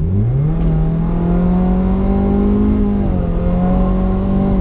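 2016 Subaru WRX's turbocharged 2.0-litre flat-four under full-throttle acceleration, heard from inside the cabin through a resonated 3-inch midpipe and muffler-delete exhaust. The engine note climbs quickly at the start and holds high while rising slowly. It dips once about three seconds in as the automatic shifts, then holds high again.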